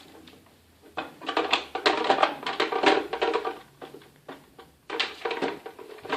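Music with percussion: a run of short, sharply struck pitched notes.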